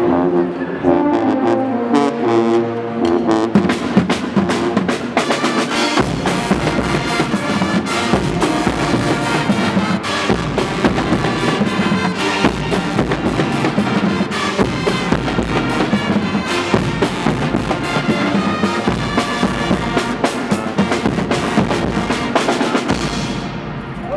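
Guggenmusik carnival band playing loud brass-and-drum music: sousaphones, trumpets, trombones and saxophones over a drum kit and bass drum. The low brass and drums come in fully about six seconds in, and the music stops just before the end.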